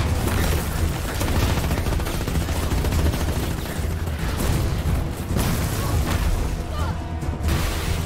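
Film action soundtrack: sustained rapid gunfire with bullets striking and sparking off a metal shield, over a heavy low rumble and orchestral score.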